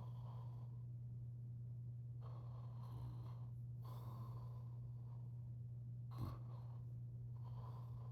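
A sleeping man's slow, heavy breathing, soft drawn-out breaths every couple of seconds, with a brief sharp sound about six seconds in, over a steady low hum.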